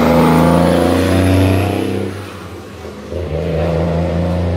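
Heavy diesel engine of a Shacman dump truck running as it passes close by, fading out about two seconds in. A second vehicle's engine rises about a second later.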